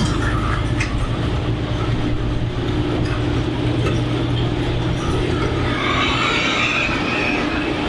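Vehicle on the move: a steady low drone with road noise, and a brief higher-pitched rise in the noise near the end.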